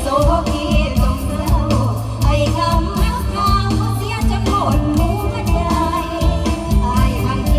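Live Thai luk thung–mor lam band music: a woman's voice sings a bending melodic line over a steady drum beat and heavy bass.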